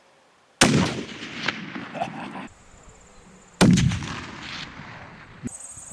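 Two rifle shots about three seconds apart, each followed by an echo that rolls away over a second or two.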